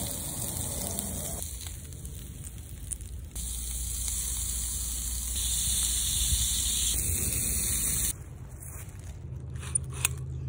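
Shrimp skewers and butter sauce sizzling on a cast iron grill over hot coals, a steady hiss that changes abruptly at several cuts. Quieter after about eight seconds, with a few sharp clicks near the end.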